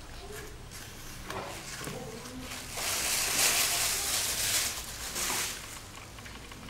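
Rustling noise lasting about two and a half seconds, starting about three seconds in, with a few faint soft clicks before it.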